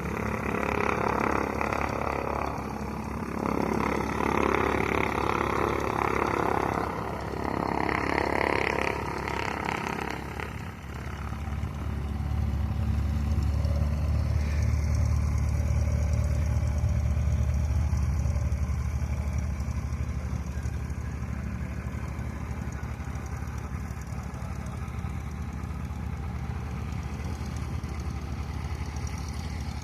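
Small propeller airplane's piston engine running, with a fluctuating rushing noise for roughly the first ten seconds, then settling into a steady low drone.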